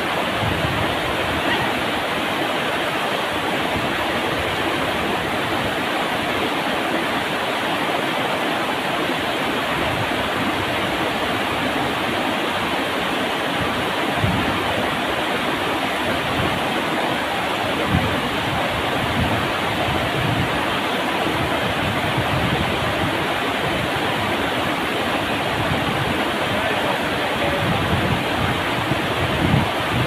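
Waterfall pouring over rock ledges into a pool: a steady, dense rush of falling water, with occasional low bumps in the second half.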